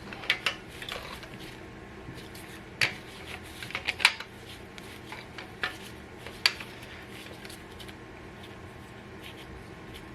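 Hand tools clinking and clicking against metal on an engine, a scattered series of sharp knocks, busiest in the first few seconds and sparser after about seven seconds.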